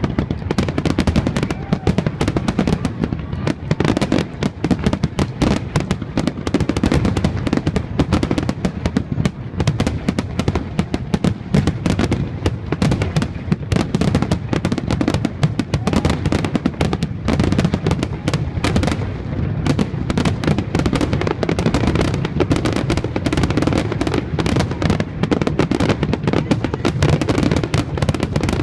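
Fireworks going off in a dense, continuous barrage of rapid pops and bangs, with no let-up.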